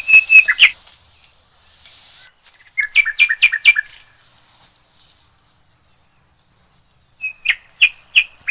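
A bird calling in three bursts of quick, repeated whistled notes: one at the start, one about three seconds in, and one near the end.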